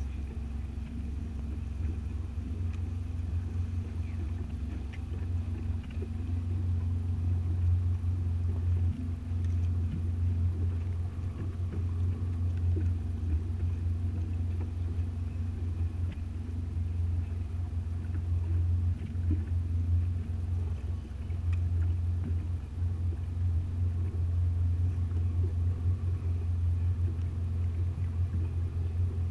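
Boat engine running steadily at low speed, a deep, even hum.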